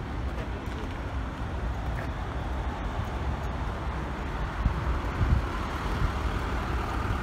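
Steady low outdoor rumble with no voices, with a couple of soft thumps about five seconds in.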